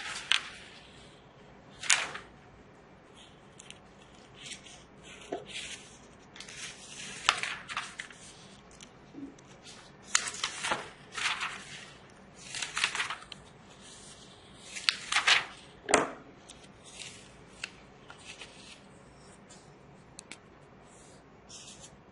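Paper handling on a textbook, with pages rustling and a marker writing on them, in about a dozen short scratchy bursts and a few sharp clicks.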